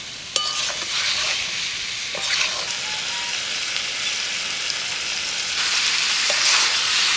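Jackfruit, potato and spiced masala sizzling in a kadai over a wood fire while a spatula stirs and scrapes through it, with a sharp knock of the spatula on the pan about a third of a second in. Fried prawns are tipped into the pan and the sizzle gets louder about five and a half seconds in.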